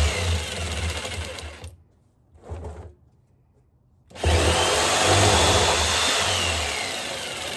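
Jigsaw cutting the top off a 55-gallon barrel: the blade runs, stops about two seconds in, gives a brief blip, then starts again about four seconds in. Near the end, a high motor whine falls in pitch as the saw slows.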